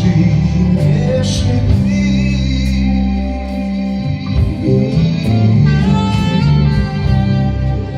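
Folk-rock band playing live: an instrumental passage with held bass notes, guitar chords and sharp percussion hits.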